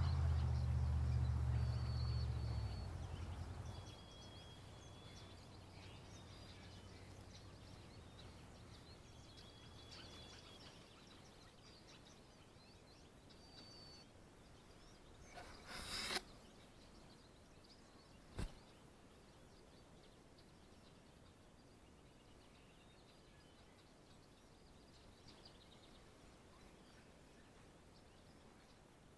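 A low rumble fades out over the first few seconds, leaving a quiet outdoor background. Over it come a few faint, short, high bird chirps. About halfway through there is a brief rushing burst, and soon after it a single sharp click.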